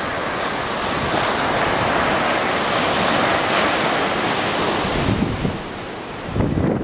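Heavy hurricane surf rushing and breaking, with wind buffeting the microphone. The wash swells over the first seconds and eases off near the end, where a couple of gusts hit the microphone.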